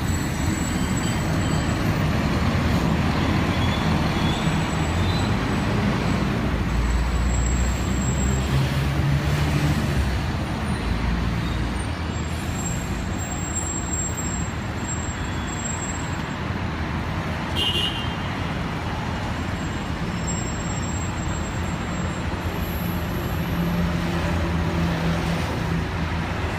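Steady roar of sandstorm wind mixed with road traffic, with engine hum swelling twice, about a third of the way in and again near the end.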